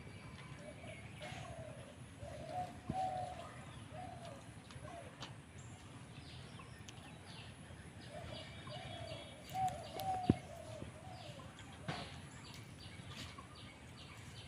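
A dove cooing in repeated low phrases, with small birds chirping higher up through the middle and end. A single sharp tap about two-thirds of the way through is the loudest sound.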